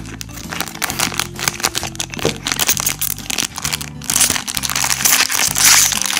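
A foil blind bag of Filly Mermaids being crinkled and handled as it is opened by hand, the crinkling heaviest in the second half. Background music with steady low notes plays under it.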